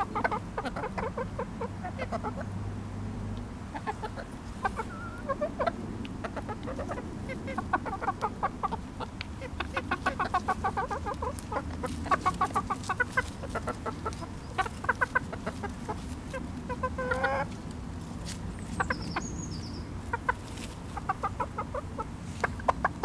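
Hens clucking while they feed, with many short clucks throughout and one longer rising call about two-thirds of the way in. Sharp ticks of beaks pecking at the plastic feeder dish run through it.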